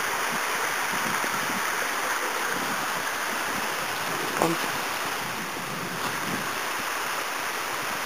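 Steady rushing of a mountain torrent, with a short knock a little over halfway.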